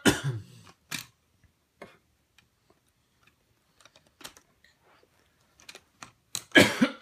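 Plastic Lego Duplo train track pieces clicking and knocking as small hands press and fit them together on a carpet. The clicks are scattered and irregular, with louder clattering knocks at the start and near the end.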